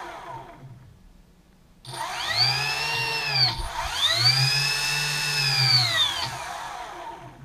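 The ROV's electric thrusters spinning in air under joystick control: twice they rise to a high whine and wind back down, the second run held steady for a couple of seconds before falling away.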